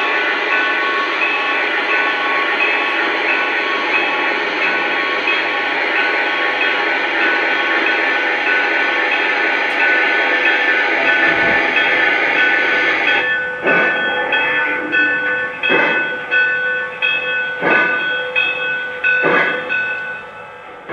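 Lionel O scale 2-10-4 Texas model steam locomotive running with its onboard sound system playing: a steady mix of held tones over a hiss, then, a little past halfway, four strong steam puffs about two seconds apart as it passes.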